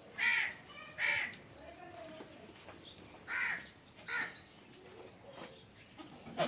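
A crow cawing four times, in two pairs of short harsh caws. Faint small-bird chirps sound between the pairs, and there is a sharp click near the end.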